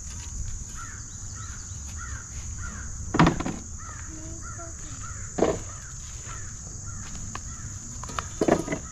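Crow cawing a few times, with one call about three seconds in, another a couple of seconds later and two quick ones near the end. Small birds chirp softly throughout, over a steady high insect drone.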